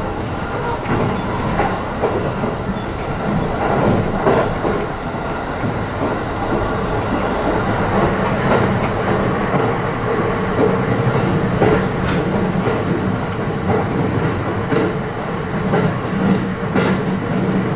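Interior running noise of an E531-series electric train under way: a steady rumble and hum from the wheels and running gear, with sharp clicks now and then as the wheels cross rail joints.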